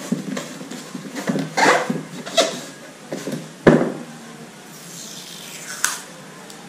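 Hands handling scissors and a roll of tape on a styrofoam box: a run of rustles and scrapes, with one sharp knock a little past halfway, likely the scissors being set down, and a scraping sweep near the end.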